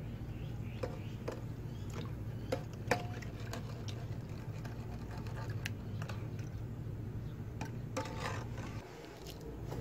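A saw-blade steel axe head on a wire being swished about in a pot of liquid: light sloshing with scattered small clicks and taps of metal against the pot, over a steady low hum that drops out near the end.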